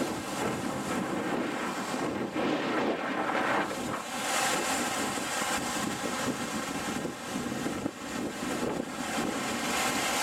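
Rough surf breaking and washing over shoreline rocks, a surging, rushing noise that swells and eases, with wind buffeting the microphone.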